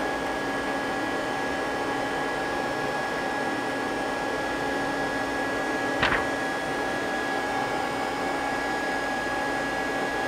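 Steady machinery hum with a few steady whining tones from the powered-up Mazak CNC lathe and its control. About six seconds in there is one short click.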